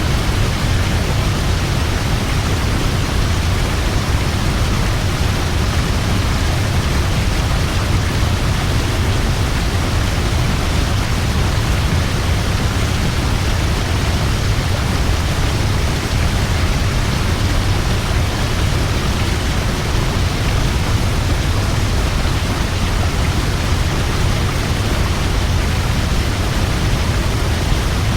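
Heavy waterfall: a steady, unbroken rush of falling water, deepest and strongest in the low end.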